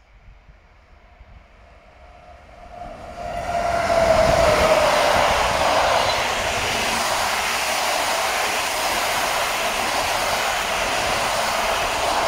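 Electric locomotive and its passenger coaches passing close by at speed. The sound swells over the first few seconds, with a whine that drops in pitch as the locomotive goes by. It is followed by a steady, loud rush of coach wheels rolling on the rails.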